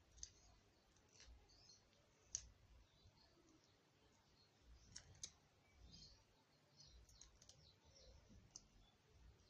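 Near silence with faint, irregular small clicks and crackles from a raw shrimp being deveined by hand, its shell and flesh handled under the fingers. The sharpest click comes about two seconds in.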